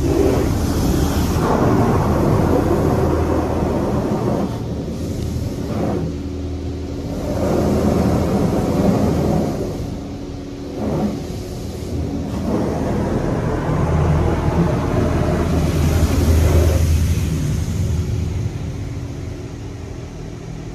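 High-pressure water jets from a PDQ LaserWash 360 PLUS touch-free car wash drumming on the car, heard from inside the cabin. The spray swells and eases about three times as the wash arm passes around the car, over a steady pump hum.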